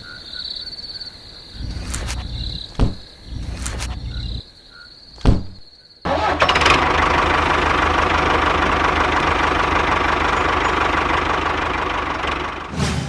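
Insects chirping in a steady high trill, with a few sharp knocks and short low rumbles. About six seconds in, a small motor starts suddenly and runs steadily and loudly for about seven seconds, fading near the end.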